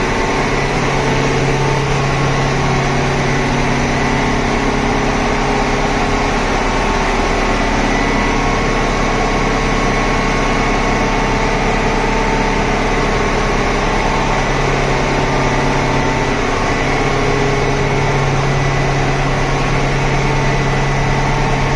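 Reciprocating refrigeration compressor driven by an electric motor, running steadily: a loud, even machine drone with a constant hum. It is the one compressor in service, with the other two units standing idle.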